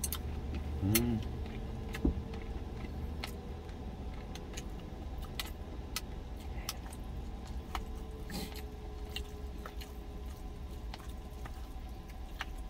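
Chewing and light clicks of a spoon and chopsticks against a stainless steel lunch container, over the steady low hum of the truck's idling engine. A short hummed 'mm' comes about a second in.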